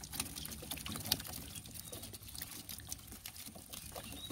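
Water trickling and dripping from a wet cast net held up over a wooden canoe, with many small scattered clicks and patters.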